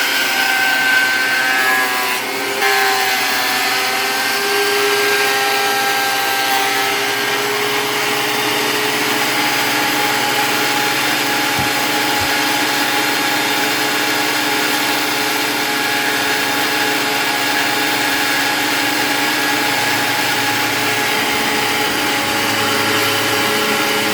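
Woodworking power machine running steadily with a whine as it cuts wood, its pitch wavering under load for the first several seconds before settling.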